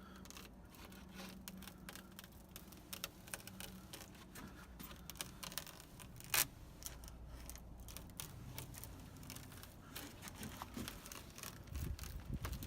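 Metal screen mesh and spline being pressed into a screen door frame's channel with a spline roller: scattered small clicks and crinkles, with one sharp click about six seconds in and low rustling near the end.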